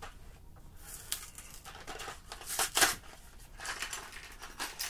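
A cardboard LEGO minifigure box being torn open and the foil packet inside crinkling and ripping apart, in a run of short tearing rustles.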